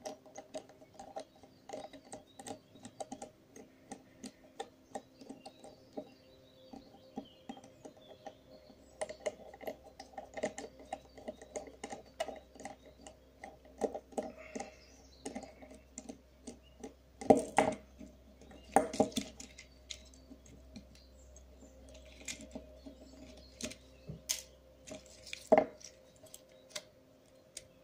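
Small screwdriver clicking and scraping as it unscrews a tiny screw from a camcorder's plastic lens assembly to take off its motor: many light irregular ticks, with a few louder clicks about two-thirds of the way through and near the end.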